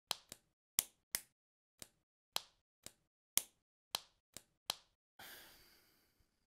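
A hand slapping a raw steak: about eleven sharp, wet slaps at an uneven pace, then a short hiss that fades away.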